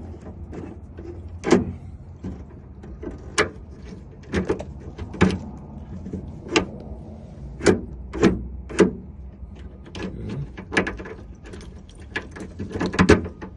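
Truck compartment lock mechanism worked by hand: a dozen or so sharp metallic clicks, about a second apart, over a low steady background. The lock's spring has come off, so the mechanism turns freely with the key.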